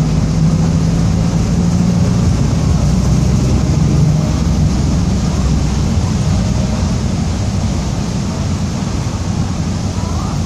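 Mercedes-Benz OF-1722M city bus under way, its diesel engine running steadily and easing off gradually in the second half, with the differential growling.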